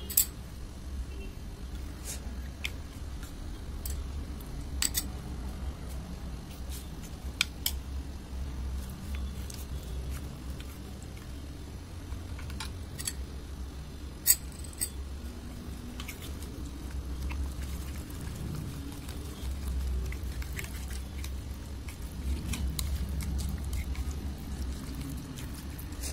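Spoons stirring thick, wet Fevicol (PVA glue) slime mixture in a plastic bowl: soft squishing, with sharp clicks now and then as a spoon knocks the bowl's rim and side. A steady low hum runs underneath.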